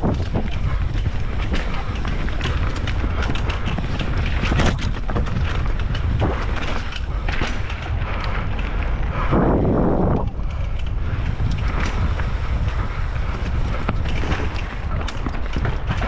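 Wind buffeting the microphone while riding a Pole Stamina 180 full-suspension mountain bike down a trail. Under it are steady tyre rumble and frequent short clattering knocks from the bike over rough ground, with a louder rush of noise about ten seconds in.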